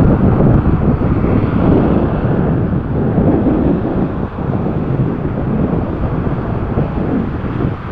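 Airbus A380 airliner on final approach with its landing gear down: the steady rumble of its four turbofan engines, mixed with wind buffeting the microphone.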